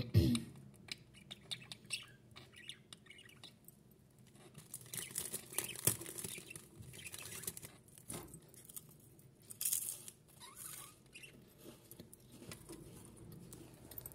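Two budgerigars in a cage: a scatter of small clicks and scratches, short rustles and a few soft chirps. A low thump comes right at the start.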